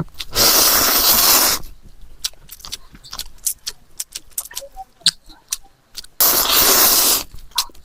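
Eating noodles close to the microphone: two loud slurps, each about a second long, one just after the start and one about six seconds in, with chewing and small mouth and utensil clicks between them.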